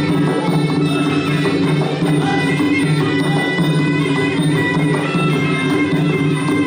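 Traditional Kun Khmer fight music: a reed-pipe melody with held, wavering notes over steady drums and small cymbals.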